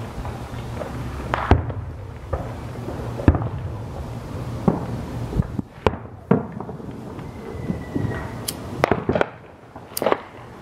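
Aerial firework shells bursting overhead: about eight sharp bangs at irregular intervals, two of them close together a little past the middle and a pair near the end.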